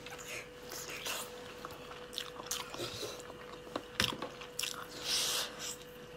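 Close-up mouth sounds of a person eating braised chicken wings: irregular biting, chewing and finger-sucking with short wet clicks. A faint steady hum runs underneath.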